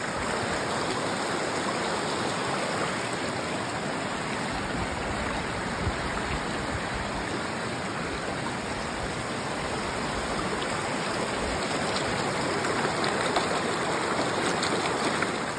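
Shallow river rapids rushing steadily over rocks, a constant even rush of water.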